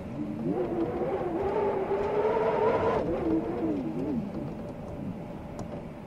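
Blizzard wind howling in a gust over a steady rushing hiss: the howl rises in pitch about half a second in, holds high, then falls away after about three seconds.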